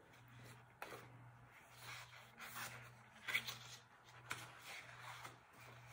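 Quiet paper rustles and a few brief taps as a page of a picture book is handled and turned.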